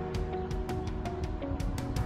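Background music with a quick, steady beat and sustained notes.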